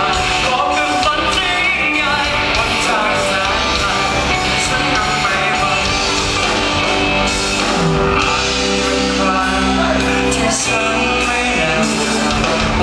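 Live rock band playing loud and steady, with a singer over electric guitars, a drum kit and a keyboard.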